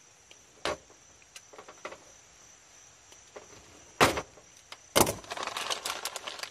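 Hands handling wires and wire-nut connections inside an air conditioner condenser's metal control panel: scattered clicks and knocks, a louder knock about four seconds in, then a crackling rustle of wires being moved near the end.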